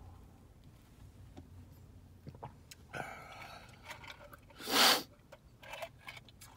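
A man drinking soup from a cup, with small mouth and cup-handling clicks, then one loud, short breath about five seconds in.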